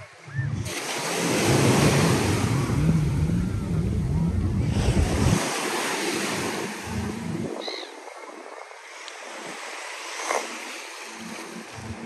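Sea waves washing onto a sandy beach, with wind rumbling on the microphone. Louder for the first five seconds or so, then quieter.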